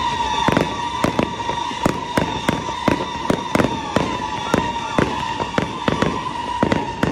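Fireworks display: rockets and aerial shells bursting in a rapid, irregular run of bangs, about three a second. A steady high-pitched tone runs underneath and fades near the end.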